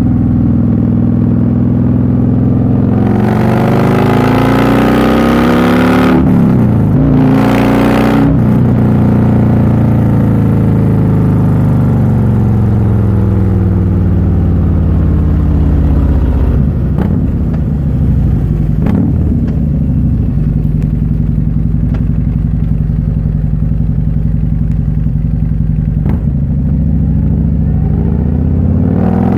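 Harley-Davidson Milwaukee-Eight V-twin, fitted with a prototype Andrews cam, running through a D&D Billet Cat exhaust while riding. About three seconds in it pulls hard with rising pitch, with short breaks for gear changes. The revs then fall away on deceleration, and it settles into a steady low rumble before revving up again right at the end.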